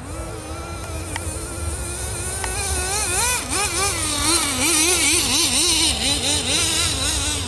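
Traxxas Jato 3.3's small two-stroke nitro engine buzzing as the RC car drives. Its pitch rises and falls again and again with the throttle, growing louder and swinging faster from about three seconds in.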